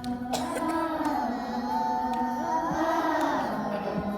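A high voice singing, holding long notes that slide gently in pitch.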